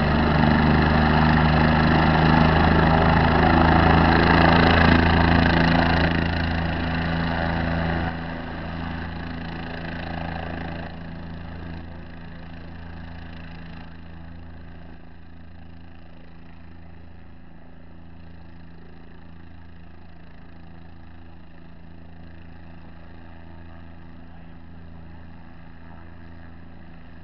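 Vehicle engine idling with a steady low hum. A louder, noisier sound rides over it for the first several seconds, then falls away in steps to leave just the even hum.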